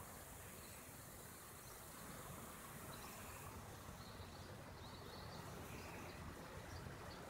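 Faint outdoor ambience: a low steady rumble with scattered short, high chirps starting about three and a half seconds in.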